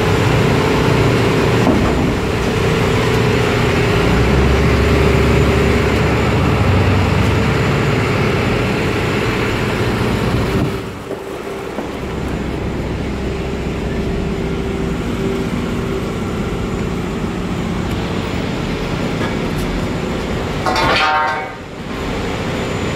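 Heavy engine machinery running steadily, a loud constant drone with a held tone in it. It drops in level about eleven seconds in, and a brief high whine cuts through near the end.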